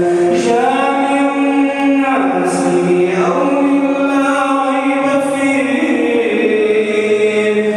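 A man chanting Quran recitation in the melodic tajweed style, drawing out long held notes that step up and down in pitch every second or two.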